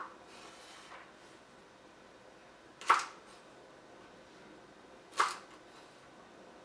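Chef's knife chopping yardlong beans on a wooden cutting board: single sharp knocks of the blade against the board, one right at the start and two more about two seconds apart.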